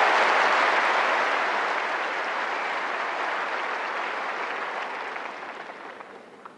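Tennis crowd applauding after a point, the clapping loudest at first and dying away gradually over several seconds.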